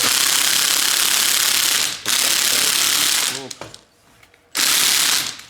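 Impact drill hammering as it runs the threaded rod of a coil spring compressor, squeezing the suspension spring. It runs in three loud bursts: a long one, a shorter one right after, and a brief one near the end after a short pause.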